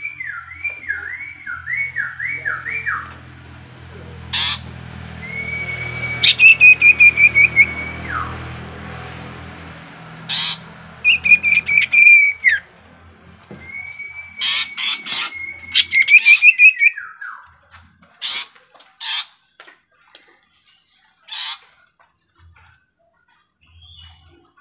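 Sirtu songbird calling: a quick run of falling whistles, then longer held whistles that break into a short trill and drop in pitch, with sharp clicks in between. A low hum runs under the first ten seconds.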